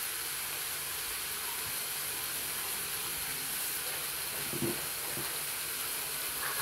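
Bacon-wrapped chicken sizzling in a hot flip-style waffle maker, a steady hiss of frying grease and steam. A couple of faint knocks about four and five seconds in.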